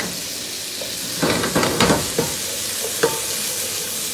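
Minced meat sizzling in garlic and oil in a frying pan while it is stirred with a wooden spoon: a steady sizzle, a quick run of spoon knocks and scrapes against the pan from about a second in, and one sharper knock with a brief ring near the three-second mark.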